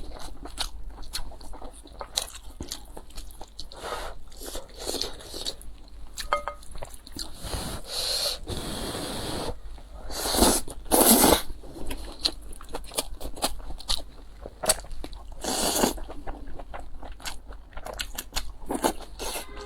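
Close-miked eating sounds: a person chewing and crunching food in a quick run of small clicks, with a few louder, longer noisy swells midway and again near the end.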